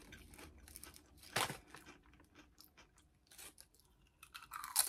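Lay's Limón potato chips crunching as they are bitten and chewed, with one loud crunch about a second and a half in and a quick run of crunches near the end.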